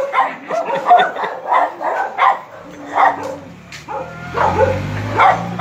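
Dogs barking in short repeated barks, about two a second. From about halfway through, a vehicle engine rises underneath.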